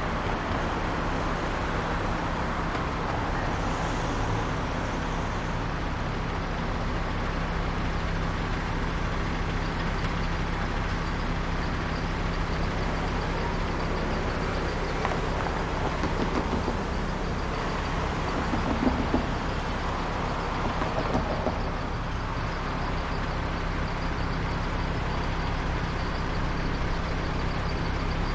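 Suburban street ambience: steady low traffic rumble of passing cars and heavier vehicles, with a constant low engine hum and a few brief louder moments about two-thirds of the way through.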